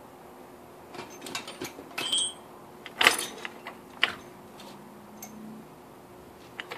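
Irregular metal-on-metal clinks and clanks of hand tools working on a Nissan V6 engine's bottom end, with one loud clank about three seconds in and a short ringing ping just after two seconds.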